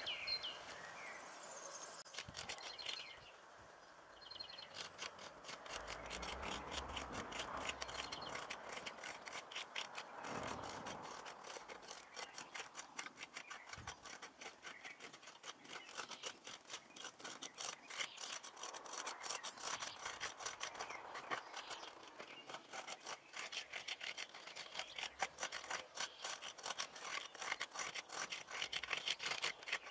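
Garden rake dragged through loose, freshly turned soil in quick repeated strokes, a rapid scratchy scraping, with a quieter pause about 2 to 4 seconds in.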